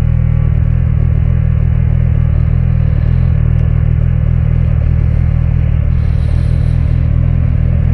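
Vehicle engine idling steadily: a low, even hum that holds one pitch, with no revving.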